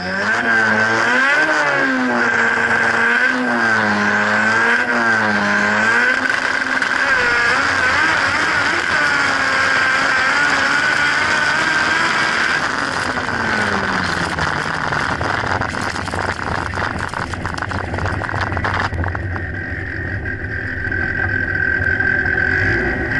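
Drag-racing car's engine heard from on board: revved in repeated rising-and-falling swells, then held high and steady during the run, winding down about twelve seconds in to a low, uneven rumble as the car rolls off the track.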